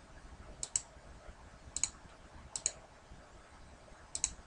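Computer mouse button clicking four times, each click a quick pair of sharp ticks, over a faint hiss.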